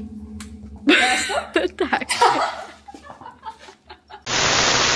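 A girl's short giggling laughter, then, about four seconds in, a burst of loud, even hiss that starts and stops abruptly and lasts about a second and a half.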